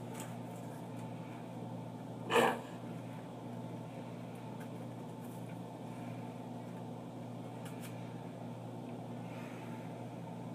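Steady low room hum, broken about two seconds in by one short, loud burst of breath or voice from a person.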